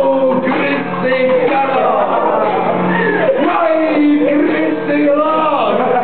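A man singing a song at full voice while strumming an acoustic guitar.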